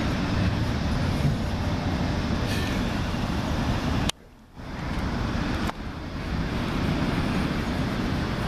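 Steady low rumble of city traffic noise. It cuts out abruptly for about half a second a little before the middle of the clip, then returns.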